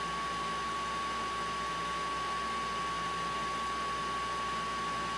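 Steady, even hiss with a constant thin high tone running through it and no other events.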